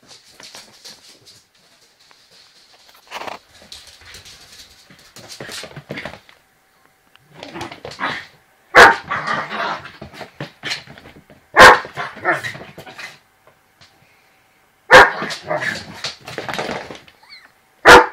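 A dog barking in play: four sharp single barks about three seconds apart in the second half, each followed by a second or so of busier, quieter noise. Quieter scuffling and rustling come before them.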